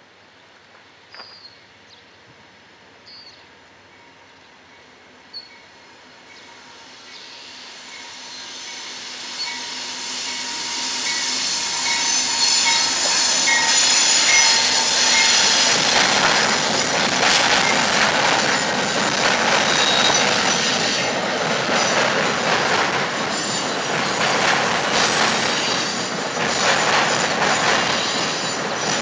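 Amtrak passenger train approaching and crossing a steel truss bridge: its sound swells from about six seconds in to a loud, steady rumble of wheels on rail. Rapid clicks over rail joints and a high wheel squeal run through it. A few faint high chirps come early on.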